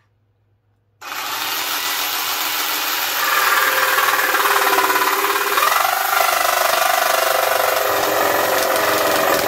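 WESCO 20V cordless jigsaw starting about a second in and running steadily, then cutting through a thin wooden board and getting louder from about three seconds in. The board is not clamped firmly during the cut.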